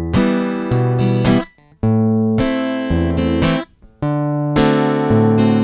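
Acoustic guitar played in a bass-and-strum pattern: a bass note, a downstrum, a second bass note, an upstroke with the index finger, then a muted down-stroke in which the palm slaps onto the strings and stops them dead. The cycle repeats about every two seconds.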